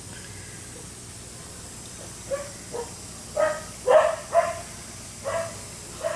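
Steady hiss of water draining out of a concrete fish tank, with a dog giving several short barks from about two seconds in.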